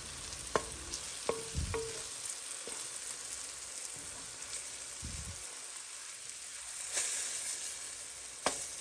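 Vegetables sizzling in oil in a kadhai while being stirred with a wooden spatula: a steady frying hiss with a few light knocks and scrapes of the spatula on the pan, the sizzle swelling briefly near the end.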